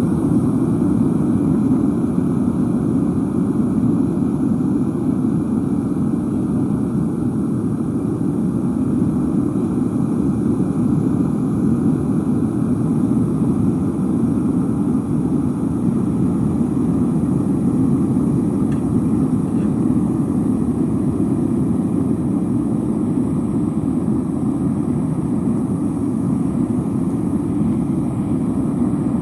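Propane-fired metal melting furnace running steadily, its burner giving a constant deep rush of flame while it heats a crucible of scrap copper wire toward melting.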